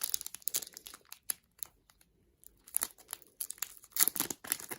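Crinkling and tearing of plastic packaging as photo cards are unwrapped by hand, in short sharp rustles. It stops for about a second midway and is loudest near the end.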